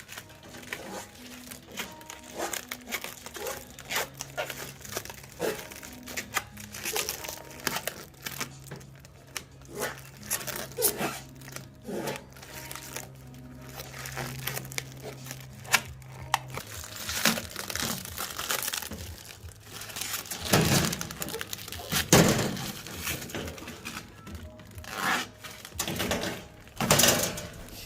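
Crinkling and rustling of material being handled, with scattered clicks, knocks and a few heavier thunks as car interior parts are fitted by hand. A steady low hum runs under the first half and stops about two thirds of the way in.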